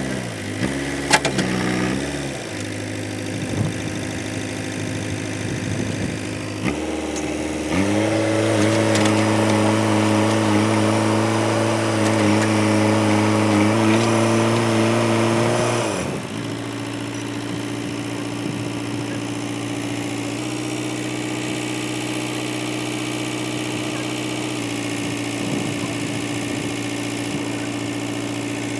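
Diesel engine of a JCB 3DX backhoe loader: revs waver in the first couple of seconds, then it runs louder at raised, steady revs for about eight seconds before dropping back to a steady idle.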